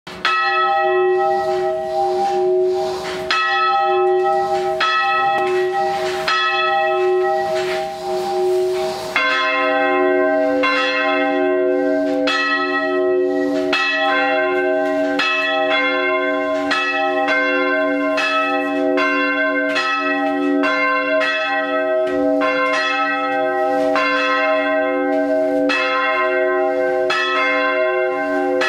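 The Friedenskirche's original church bells, hand-rung by rope and heard from inside the bell tower. One bell swings alone at first, striking about once every second or so with a long ring; about nine seconds in a second, deeper bell joins, and the two strike in turn.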